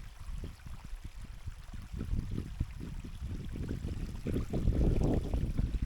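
Wind buffeting the microphone: an uneven low rumble that comes and goes in quick gusts and grows stronger in the second half.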